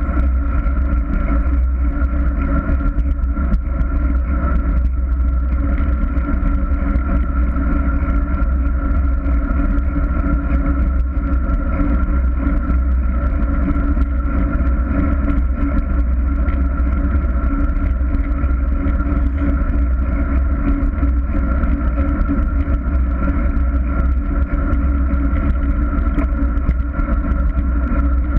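Steady wind rush buffeting the microphone of a camera carried at speed, heavy and low, with a constant rolling hum from wheels on asphalt underneath.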